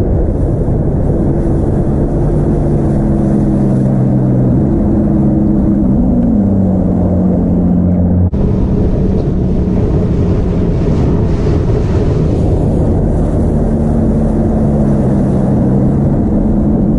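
Bass boat's outboard motor running at speed across open lake water, its low engine note shifting a little in pitch now and then, under wind rushing over the microphone and water rushing past the hull.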